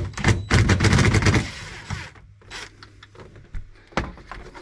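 Cordless DeWalt impact tool hammering in a fast, rattling burst on the sun-visor bolts. It stops about a second and a half in. A single sharp knock follows near the end.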